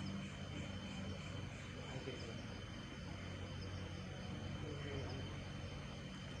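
Night insects, crickets or the like, chirping in an even repeating rhythm, over a steady low hum.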